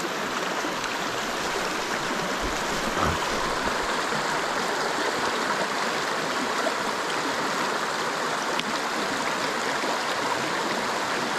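Steady rush of flowing stream water, with a brief low thump about two and a half seconds in.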